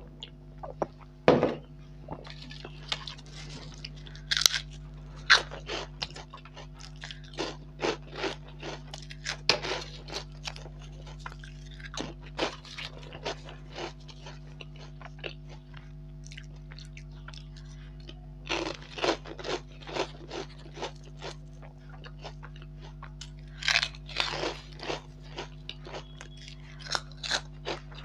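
Crisp fried snack chips being bitten and chewed close to the microphone: a run of sharp crunches in uneven clusters, over a low steady hum.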